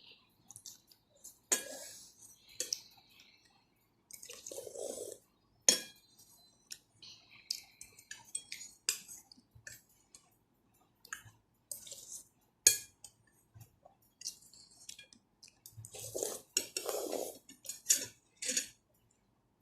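A spoon and fork clinking and scraping against a soup bowl, with sharp knocks scattered through and a few longer stretches of close-up eating noise.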